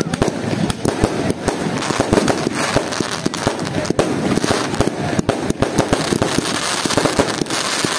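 Aerial fireworks going off in quick succession: a dense, continuous run of bangs and crackling star bursts, several a second.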